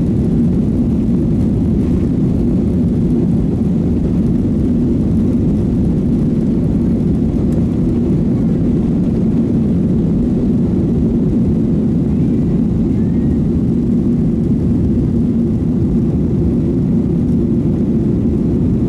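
Cabin noise of a Boeing 737-900ER on takeoff, heard from a window seat behind the wing: its CFM56-7B engines at takeoff thrust give a steady, loud, low rumble.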